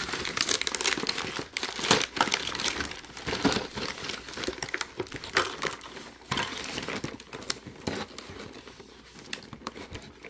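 Toy packaging being crumpled and handled: irregular crinkling and crackling, busiest in the first few seconds and thinning out toward the end.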